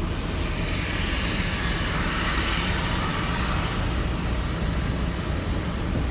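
Steady road noise inside a work truck's cab while driving on a snowy road: a low engine and tyre rumble, with a hiss that swells and fades about midway through.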